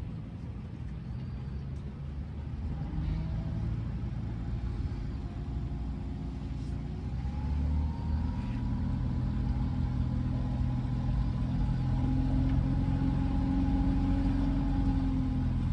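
A small sightseeing boat's outboard motor running steadily, a low hum with a thin higher whine above it, growing louder through most of the stretch as it picks up speed, then holding near the end.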